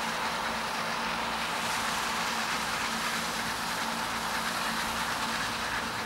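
New Holland 8080 combine harvester running as it cuts and threshes wheat: a steady mechanical drone of engine and threshing machinery with a constant low hum underneath.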